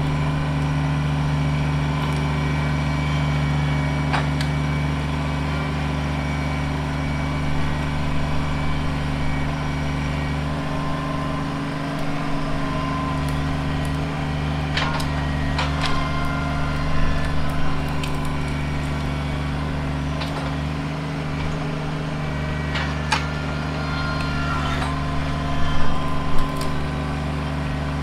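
Kubota BX23S compact tractor's three-cylinder diesel running steadily under load as its loader grapple pushes into a brush pile. Sharp snaps and cracks of pine branches break in now and then, loudest near the end.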